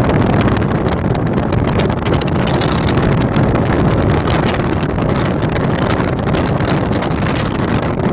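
Steady wind rumble buffeting the microphone over the running noise of a moving vehicle, with no change in pitch.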